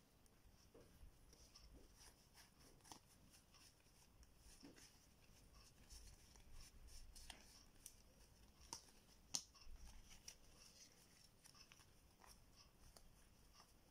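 Faint rustling and light clicks of a deck of DOS playing cards being handled and fanned out in the hands, with one sharper click a little past nine seconds in.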